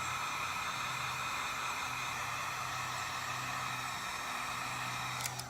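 Heat gun running steadily: a constant blowing hiss with a low hum from its fan motor, as it heats the adhesive holding a bumper reflector in place.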